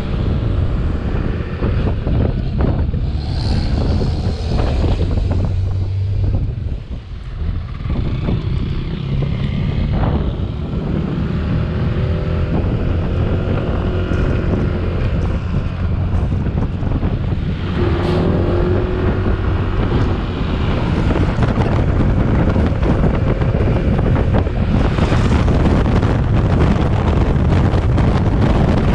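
Wind buffeting the microphone on a moving Yamaha NMax scooter, a loud low rumble mixed with the scooter's engine and road noise, dipping briefly about seven seconds in.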